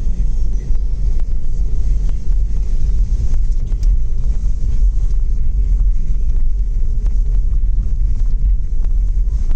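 2004 Toyota Land Cruiser's 4.0-litre engine and all-road tyres rumbling steadily as it drives over a rough off-road track, with scattered small knocks and rattles.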